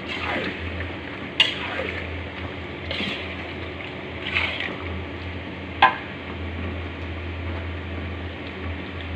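Jengkol cooking in spicy sweet soy sauce being stirred in a pan, with a steady sizzle and about four sharp metal clanks of the spatula against the pan.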